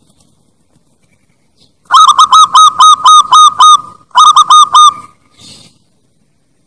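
Zebra dove (perkutut bangkok) calling: a fast run of about eight loud, evenly spaced staccato cooing notes, around four a second, starting about two seconds in, then after a short break four more notes.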